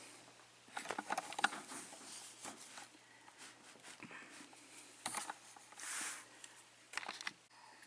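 Scattered light clicks, taps and rustles of a euro lock cylinder being handled and clamped in a vise.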